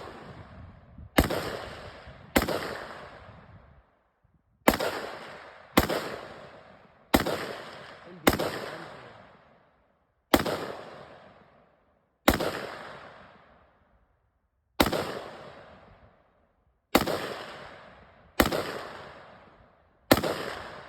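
A firearm fired about a dozen times at an unsteady pace of one shot every one to two and a half seconds, with each report ringing off in echo before the next.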